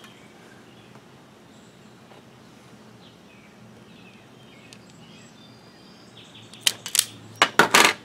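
Quiet background with a few faint bird chirps, then a quick run of about five sharp clacks near the end as an Irwin self-adjusting wire stripper is worked and set down on the bench.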